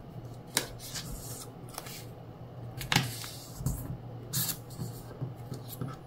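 A square sheet of origami paper handled and folded in half by hand: scattered short crisp rustles and taps as the paper slides on the table and the fold is pressed flat, the sharpest about three seconds in. A low steady hum runs underneath.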